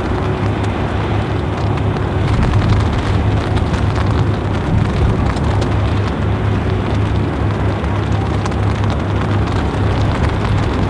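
Heavy rain falling, with a steady low drone underneath.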